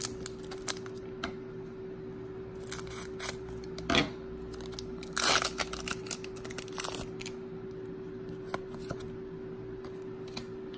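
Scissors cutting open a foil Pokémon booster pack: scattered snips and crinkles, loudest about four and five seconds in, then the cards being handled. A steady low hum runs underneath.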